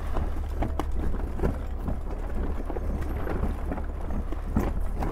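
Wind buffeting the microphone on the deck of a sailing ship under sail, a steady low rumble with scattered light knocks throughout.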